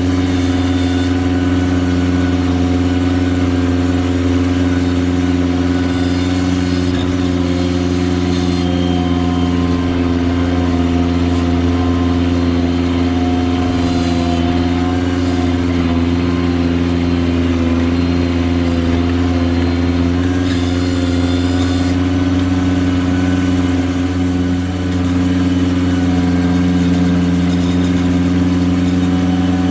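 Ventrac 4500Z compact tractor's engine running steadily at a constant speed as the machine drives along, with a few brief faint high hisses over it.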